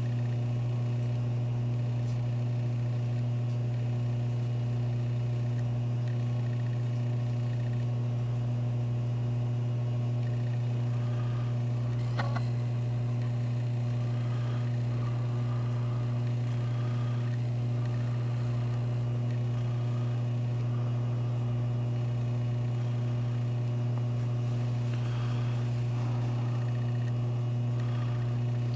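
Steady low electrical hum with one faint click about twelve seconds in.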